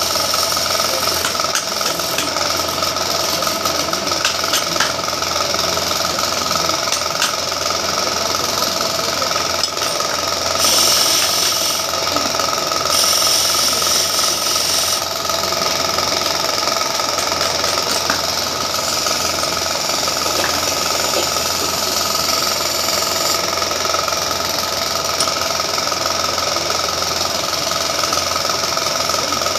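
Wood lathe running steadily with a constant motor hum while a hand-held chisel cuts into a spinning wooden spindle. The cutting hiss grows louder twice, around the middle.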